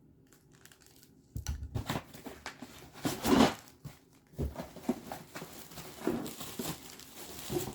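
Packaging being unpacked from a humidifier box: irregular crinkling and rustling with a few sharper rips, starting about a second and a half in and loudest around three seconds in.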